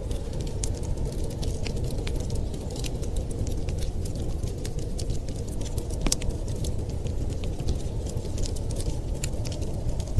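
Wood fire crackling in a fireplace: many small sharp pops and snaps scattered irregularly, one louder snap about six seconds in, over a steady low rumble.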